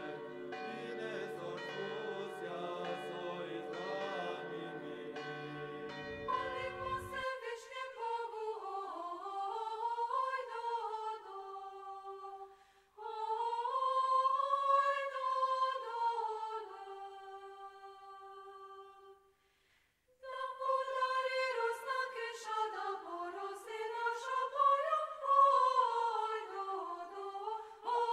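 Church bells ringing, cut off about seven seconds in as a women's choir begins singing a slow melody a cappella. The singing goes in long phrases, with a short break about two-thirds of the way through.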